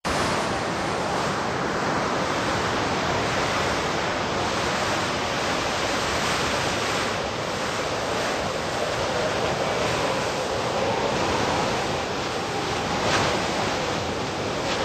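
Blizzard wind blowing steadily, an unbroken rushing noise with a short louder gust near the end.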